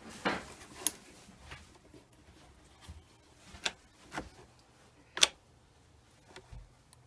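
About half a dozen irregularly spaced clicks and light knocks of a chainsaw chain and the electric chain sharpener's vise and plastic housing being handled, the sharpest about five seconds in. The sharpener's motor is not running.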